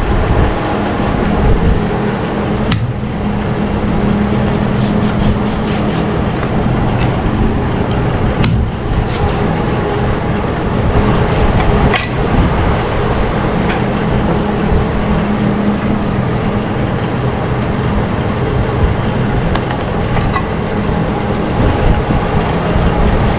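A steady mechanical drone with a low hum, broken by a few scattered sharp knocks.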